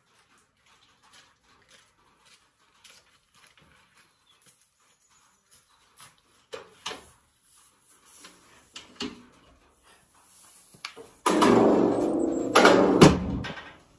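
Livestock trailer's metal rear ramp being let down: a sudden loud clatter and rattle starts about eleven seconds in, with a bang about a second later. Faint scattered clicks and knocks come before it.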